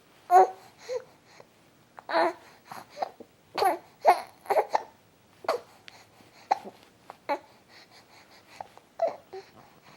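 A baby making short vocal sounds, little cries and coos, broken by hiccups, about a dozen separate bursts with gaps between them.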